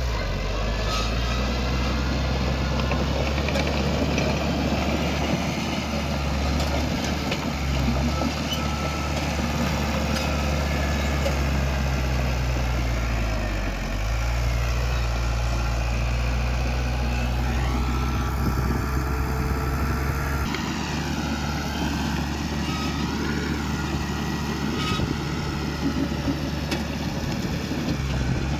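Heavy diesel engine of earthmoving machinery running steadily, its pitch sagging briefly about halfway through and shifting again a few seconds later, with a wavering higher squeal for a few seconds past the middle.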